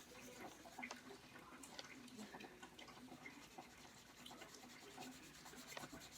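Faint scratchy rubbing of a marker colouring in on paper, in many quick short strokes.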